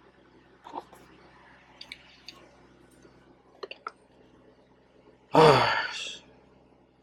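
A person's short wordless vocal sound, like a sigh, about five seconds in, falling in pitch. Before it, a few light clicks over a faint steady hum.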